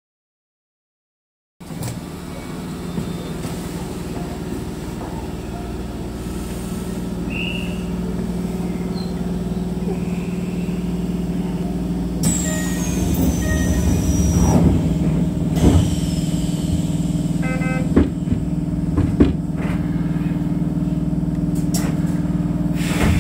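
Keisei electric train heard from the driver's cab: after a second and a half of dead silence, a steady low hum that slowly grows louder. About halfway through, a high whine falls in pitch, and several sharp clicks follow.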